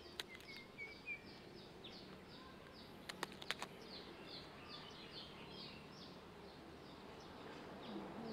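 Faint outdoor chirping: short, high, falling chirps repeating evenly about three times a second, with a brief rising bird whistle near the start. A few sharp clicks stand out about three seconds in.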